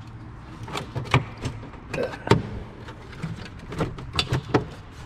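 Irregular plastic clicks and knocks from the Audi RSQ8's V8 engine cover being tugged at its press-fit mounts, without coming free. The loudest knock comes a little over two seconds in.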